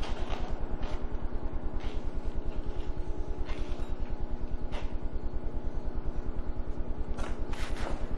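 A steady, fast, low mechanical pulsing with a hum over it, about ten beats a second, like a motor running. A few short rustles and clicks come and go over it, the thickest cluster near the end.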